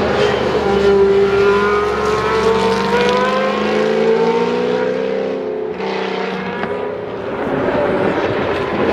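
Historic Can-Am sports-racing car engine under hard acceleration, its note climbing steadily in pitch for about five seconds. It breaks off briefly a little before the six-second mark, then climbs again, as in a gear change.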